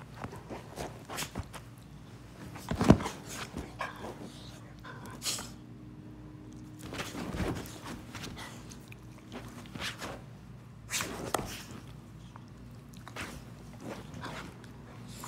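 Two pit bulls play-fighting on a couch: scuffling and mouthing with dog play noises in short, irregular bursts, the loudest a sharp one about three seconds in.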